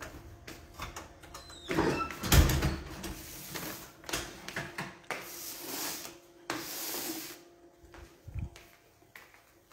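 Handling noise from a phone being carried around a room: irregular rustles and scrapes, with a heavy thump about two and a half seconds in and a softer thud near the end.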